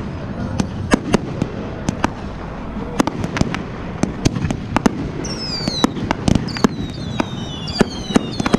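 Aerial fireworks going off in a rapid, irregular run of sharp bangs and crackling pops over a low rumble. From about five seconds in, several high whistles join in, each falling in pitch.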